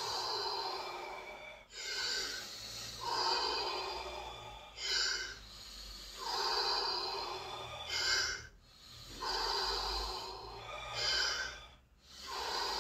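A man breathing deeply and rhythmically through the mouth in Wim Hof-style power breathing, each breath a long pull followed by a short puff, about one breath every three seconds.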